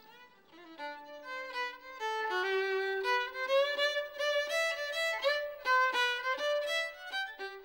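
Fiddle playing a slow melody, sliding into some of its notes, that grows louder about two seconds in: the radio play's opening theme music.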